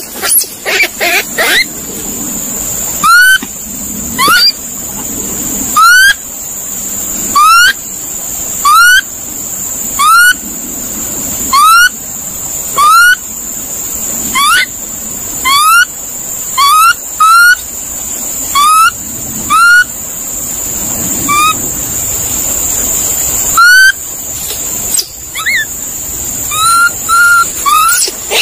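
A monkey calling over and over: short, sharply rising squeaky calls, one every second or two with a few longer gaps, over a steady high-pitched hiss.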